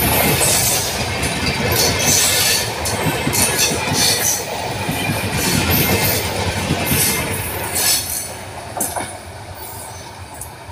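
Bangladesh Railway intercity passenger coaches rolling close by, wheels rumbling and clacking over the rails with some high wheel squeal. The sound fades after about eight seconds as the last coach passes and the train draws away.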